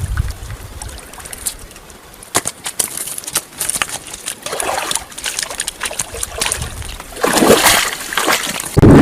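Water splashing and dribbling while a freshly caught bass is handled, with scattered sharp clicks and knocks. A loud rush of noise starts near the end.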